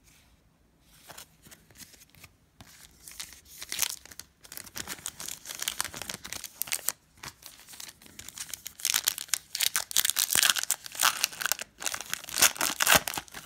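Foil-lined wrapper of a basketball trading-card pack being torn open and crinkled by hand, a dense crackling that starts about a second in and grows louder in the second half.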